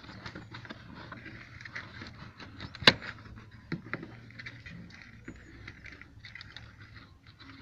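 Rubber door seal and plastic sill trim of a Renault Kwid being pressed back into place by hand over routed wiring: scattered rubbing and small clicks, with one sharp click about three seconds in.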